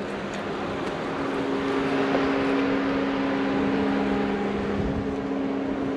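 A vehicle engine idling: a steady mechanical hum of a few held low tones over an even hiss.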